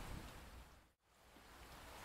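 Steady rain-like noise with a soft pattering texture, fading down to a moment of silence about a second in and fading back up.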